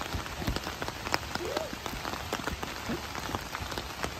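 Steady rain falling, with many separate drops ticking sharply on nearby surfaces. A short voice sound rises and falls about a second and a half in.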